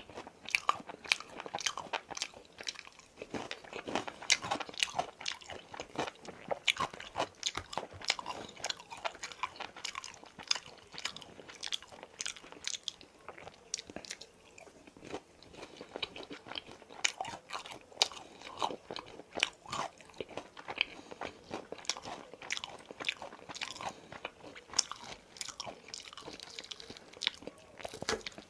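Close-miked crunching and chewing of crispy boneless fried chicken, with frequent sharp crunches throughout.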